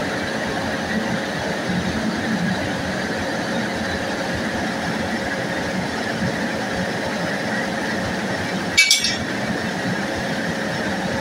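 WAP-5 electric locomotive standing with its pantograph raised, giving a steady machinery hum and whir. A single sharp metallic clink about nine seconds in.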